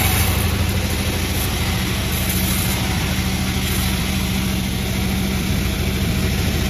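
Panda36 chainsaw engine running steadily.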